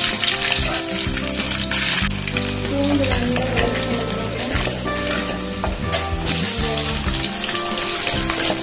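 Garlic cloves sizzling in hot oil in an aluminium pot, stirred with a spatula, with a fresh burst of sizzle partway through as sliced shallots go in. Background music plays over it.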